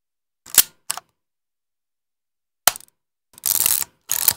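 Yashica Electro 35 rangefinder camera being worked by hand: two sharp mechanical clicks about half a second in and another near three seconds, then a half-second rasp of the film advance lever being wound on, with a shorter click-rasp just after it.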